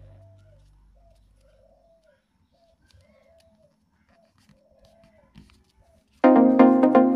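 A guitar strum dies away. Then comes a faint bird call, a short rising-and-falling note repeated about nine times. About six seconds in, loud electronic music with a steady beat starts suddenly.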